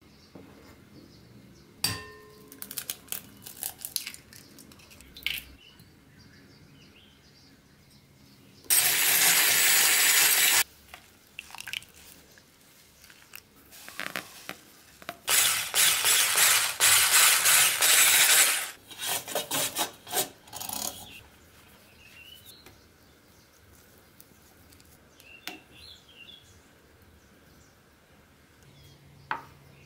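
Hand-mixing cake batter in a glass bowl: scattered clinks and taps of utensils against the bowls, two loud spells of steady scraping noise lasting about two and three seconds, and a run of short scrapes after the second one.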